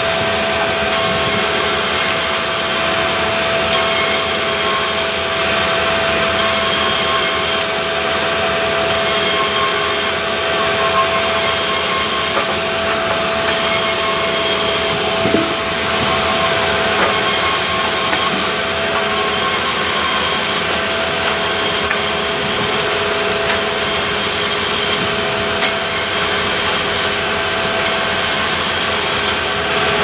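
Sawmill band saw running steadily with a constant hum as pulai wood boards are fed through the blade and sawn. There is a brief knock about fifteen seconds in.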